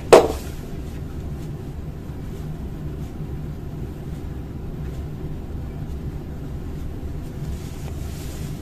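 A single sharp knock of a plastic toner cartridge against the desk just after the start, then a steady low hum underneath.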